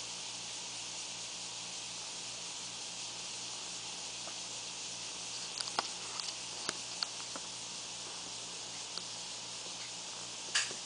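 Steady hiss of room tone or recorder noise. A few faint clicks come about halfway through, and a sharper click comes near the end.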